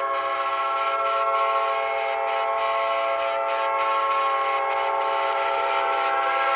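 NHL arena goal horn blowing one long, steady multi-tone chord, like a large train air horn.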